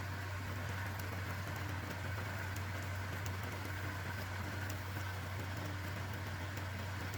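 A motor running steadily with a low, even hum, with faint scattered ticks over it.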